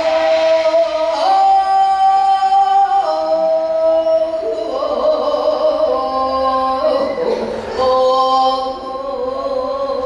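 Korean traditional singing in pansori style: one voice holding long, drawn-out notes that step to a new pitch every one to three seconds.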